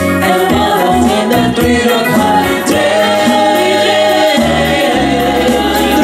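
Women singing a disco-pop song through a stage PA, holding long notes over a bass line and drum beat.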